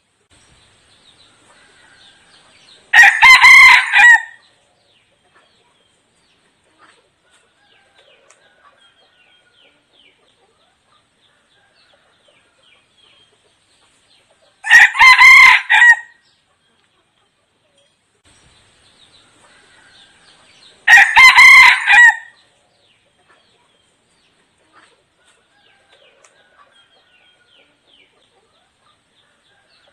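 Red junglefowl cock (a decoy bird) crowing three times. Each crow is short and clipped, lasting a little over a second, with long pauses between them.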